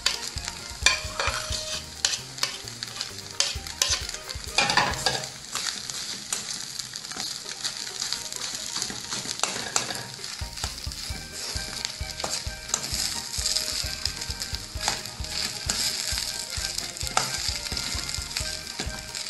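A metal spoon stirring and mashing boiled potato into a chicken and onion mixture in a metal pan, with frequent scrapes and clicks against the pan over a steady low sizzle from the low flame.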